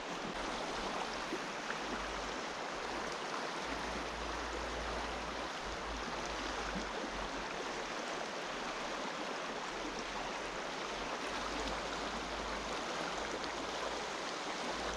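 Shallow mountain river running over stones and gravel riffles: a steady rushing hiss, with a low rumble that comes and goes.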